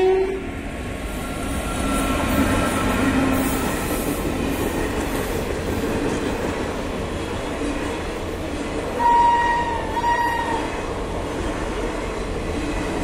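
Indian Railways mail train coaches passing close by with a steady rumble and wheel clatter. A loud horn ends just at the start, and a higher horn sounds in two short parts about nine seconds in.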